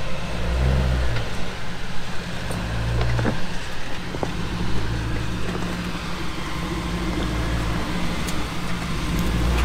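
Engine of a Corvair-bodied off-road rock crawler running at low speed as it climbs a sandstone ledge, the throttle opening in short surges about a second in, around three seconds in, and again near the end.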